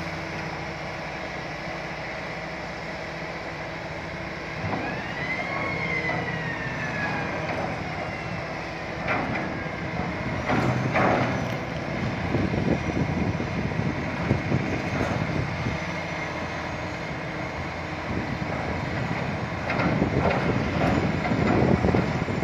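Hitachi ZX450 long-reach excavator running as it works its long stick underwater. A whine rises and then slowly falls about five seconds in, and the machine gets louder in surges, with a few knocks, around ten seconds in and again near the end.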